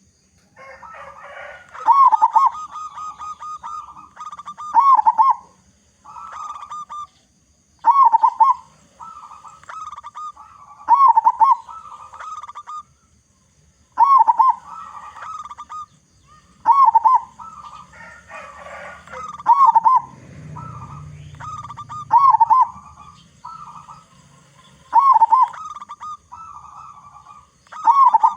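Zebra dove (perkutut) cooing: its song phrase, a strong rolling coo followed by a string of shorter notes, repeats steadily about every three seconds, about ten times.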